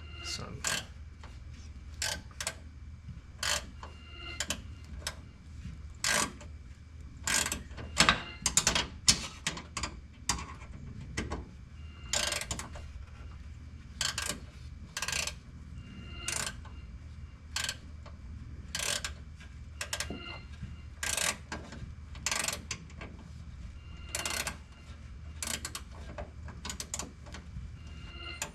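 Hand ratchet wrench clicking in short strokes, over and over, as bolts are run down and tightened.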